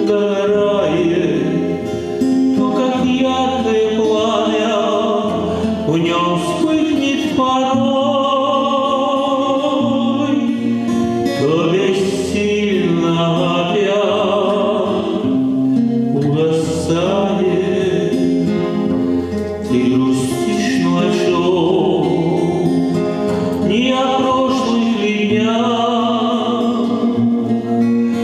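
Music: a slow song with a voice singing long held notes with vibrato over guitar accompaniment.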